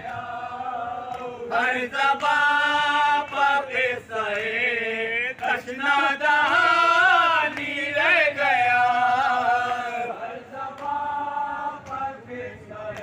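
Male voice chanting a noha, a mourning lament for Imam Husain, in long, drawn-out melodic phrases, with other voices joining in.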